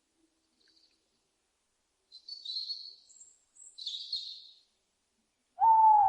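Two short bursts of high, thin bird chirping, then near the end a loud owl call: a single drawn-out hoot that falls slightly in pitch.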